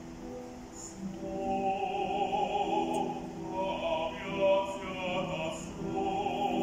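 A man singing in operatic style with vibrato, accompanied by a grand piano. His voice comes in about a second in, over the piano.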